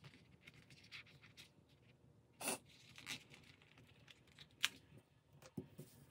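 A few short, faint rips and paper rustles of a paper sticker being peeled off its backing sheet and pressed onto a planner page. A sharp tick about two-thirds through is the loudest sound.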